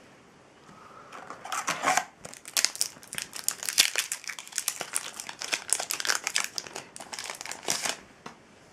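Foil wrapper of a Yu-Gi-Oh booster pack crinkling as it is torn open and handled: a dense run of crackles and rustles from about a second and a half in until near the end.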